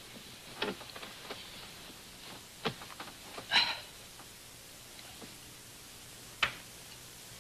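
Bedclothes rustling and a few soft knocks as a man shifts about in bed and settles onto the pillow, with one louder brief rustle about halfway through, over the steady hiss of an old film soundtrack.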